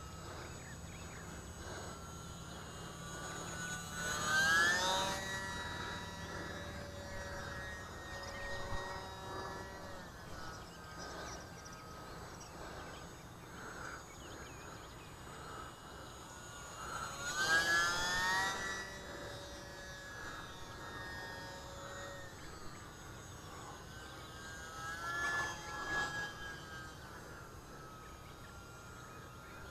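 Small electric motor and propeller of an ultra-micro RC biplane (UMX Pitts S-1S) whining in flight. The pitch rises with throttle and then holds, and the sound swells louder three times as the plane comes by.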